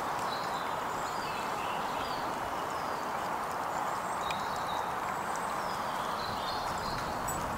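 Stream water running steadily over stones, with small birds chirping now and then.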